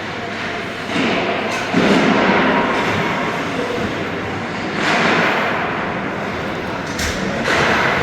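Play sounds of a youth team scrimmage: swelling scraping and rushing noise, and a sharp thump about seven seconds in.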